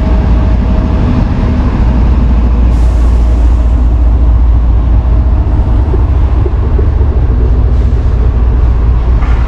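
Steady, loud rumble of a road vehicle driving along, heavy in the low end.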